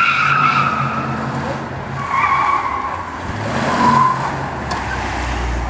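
A 1969 Ford Torino's 302 V8 running hard under load while its tyres squeal through tight cone turns. The squeal comes in three bursts: at the start, about two seconds in and about four seconds in.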